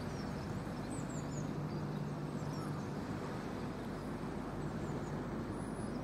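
Steady low rumble of distant city traffic, with a few faint, high bird chirps scattered through it.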